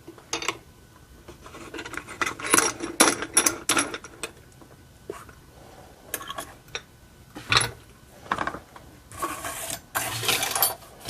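Metal clicks, rattles and scraping from a Schlage Primus lock core and picking tools being handled after the lock is opened, with a dense run of clicks early on and separate clicks later.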